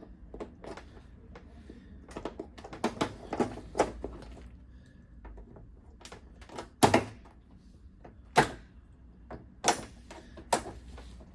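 Irregular clicks and knocks of hard plastic as a TV panel's plastic frame is worked loose from its clips, with two sharper snaps about seven and eight and a half seconds in.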